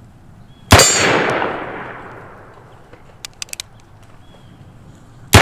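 .45 Colt single-action revolver (Cimarron Bisley) fired twice, once about three-quarters of a second in and again at the very end, each shot followed by a long echoing tail. Between the shots comes a quick run of four light clicks, the hammer being thumbed back to cock the single action.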